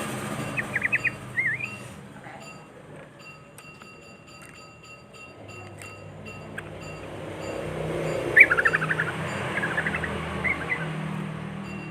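Yellow-vented bulbul (trucukan) singing quick, bubbly chirping phrases: one at the start and another about eight seconds in. Beneath the song runs a low, steady rumble like distant traffic.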